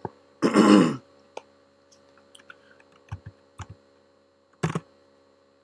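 Scattered keystrokes on a computer keyboard as a console command is typed, with a short, louder burst of noise about half a second in.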